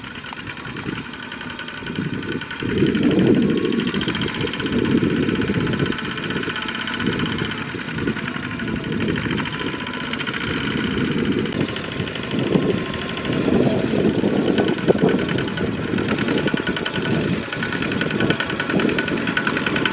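Single-cylinder diesel engines of two-wheel walking tractors running under load as they pull trailers of rice sacks. The engine sound has a fast, even firing beat and swells and dips in loudness as the machines work through the field.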